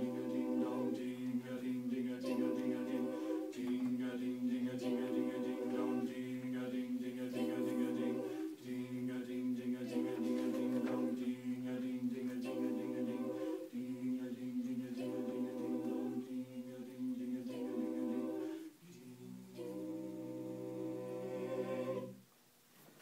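Mixed octet of women's and men's voices singing a cappella in close harmony: held chords in repeating phrases about five seconds long, then a final chord held for about three seconds that stops cleanly a little before the end.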